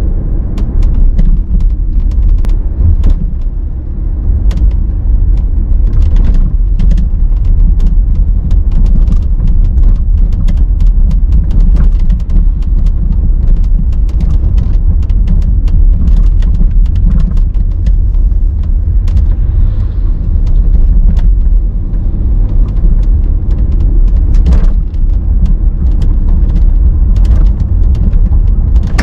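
Cabin of a BMW X5 F15 driving over a rough road: a loud, steady low rumble from the road, with frequent irregular creaks and clicks from the body and interior trim. These are the squeaks the owner blames on a badly finished car at only 40,000 km.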